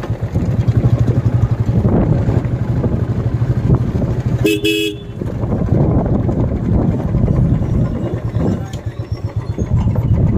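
Royal Enfield Classic 350's single-cylinder engine running as the motorcycle sets off. A horn toots briefly about four and a half seconds in.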